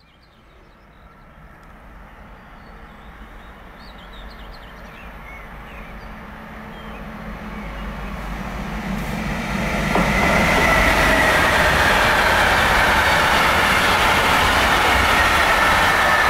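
Electric freight train of container and swap-body wagons approaching, growing steadily louder from faint, then passing close by from about ten seconds in with loud, steady rolling wheel noise and a high ringing tone over it. Faint bird chirps in the first few seconds.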